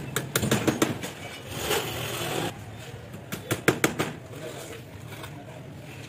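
Small hammer tapping on a wooden bird-cage frame: a quick run of taps in the first second, a short scraping rasp around two seconds in, then another run of about five taps near four seconds.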